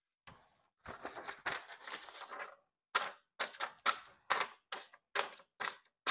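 Knife blade slicing a sheet of paper held in the hand: rustling as the sheet is handled, then from about halfway a run of short, sharp cutting strokes, two or three a second. It is a paper test of an edge just sharpened on a Smith's mini pull-through sharpener, and the knife is only getting a little sharper.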